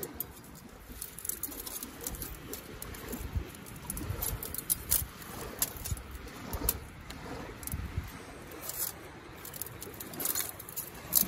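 Metal panels of two Firebox Freestyle folding stoves clicking and clinking as they are hooked and slotted together, with scattered sharp metal-on-metal ticks. Wind rumbles on the microphone underneath.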